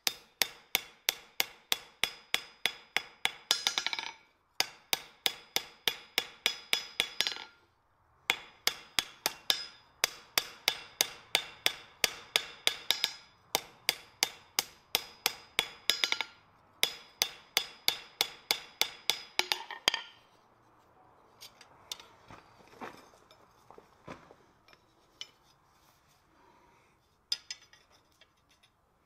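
Hand hammer forging iron on a steel anvil: sharp ringing blows, about three a second, in runs of a few seconds with short pauses. The hammering stops about two-thirds of the way through, leaving scattered light clinks of metal and tongs.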